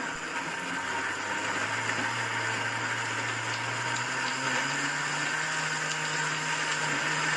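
Countertop blender running, blending chunks of fresh tomato, onion and pepper into a purée. The motor's hum steps up in pitch about four seconds in.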